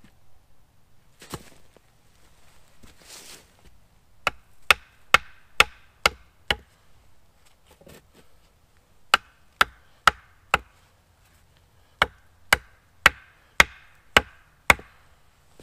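Small one-handed axe striking a wooden pole in three runs of sharp blows, about two a second: six, then four, then six, each with a short ring. A single lighter knock and a rustle come before the first run.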